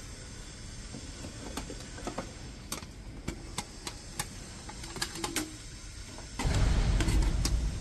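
Small metallic clicks and taps of screws and mounting parts being handled, irregular and scattered. About six seconds in, a louder rustling, rumbling handling noise takes over for the last second or so.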